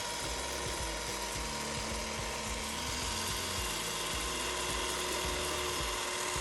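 Bolex H16 RX5 16mm film camera running on its spring-wound clockwork motor, a steady mechanical whir with a thin constant tone, running smoothly.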